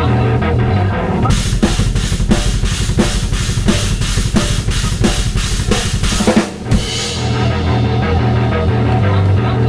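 Metal drum kit played with a double bass kick pattern over a looped, distorted guitar riff. About a second in, cymbal hits about three times a second come in over rapid kick drums. They stop abruptly at around six and a half seconds, and the riff carries on under lighter drumming.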